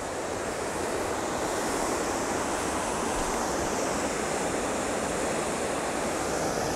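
Steady rush of a river running through rapids, an even noise without breaks.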